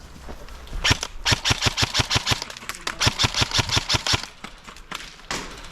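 Airsoft gun firing two quick bursts of sharp shots, about seven a second for roughly three seconds, followed by one more shot near the end.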